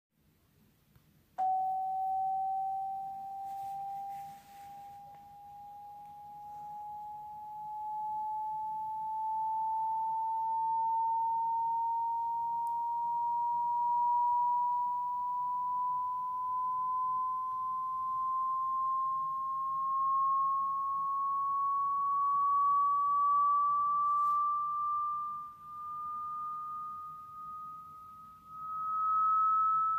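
A pure test tone starts abruptly about a second and a half in and glides slowly upward in pitch, a frequency sweep played as a hearing test for a dog. Its loudness swells and dips a little.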